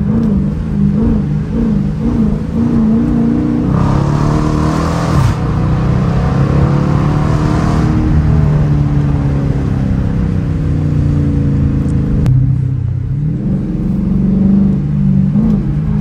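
Dodge Challenger R/T's 5.7-litre HEMI V8 heard from inside the cabin, pulling hard under full throttle from about 27 to 60 mph starting about four seconds in, then easing off as the car slows back down. There is a short sharp click about twelve seconds in.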